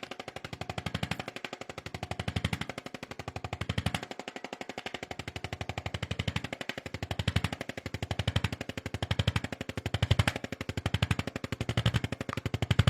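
Chiropractic percussion instrument rattling against the lower back in a rapid, even train of taps, swelling and fading about once a second as it is pressed and moved, loosening the back muscles ahead of a spinal adjustment.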